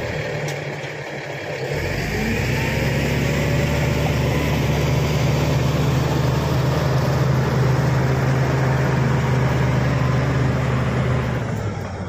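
Shantui SD16 crawler bulldozer's diesel engine running as the machine moves on its steel tracks, with a steady low engine note over track noise. The engine sound swells about two seconds in and falls away near the end.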